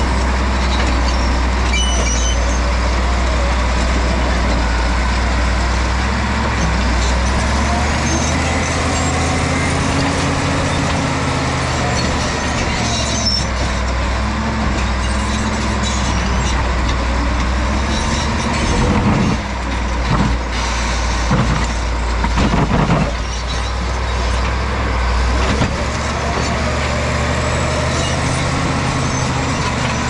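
Caterpillar D7G crawler dozer's six-cylinder diesel engine running hard under load as the blade pushes rock, its pitch rising and falling as the load changes. A few sharper knocks and scrapes come about two-thirds of the way through.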